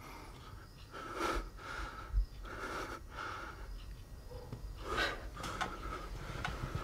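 A person breathing audibly, with several short breaths and sniffs spaced a second or two apart.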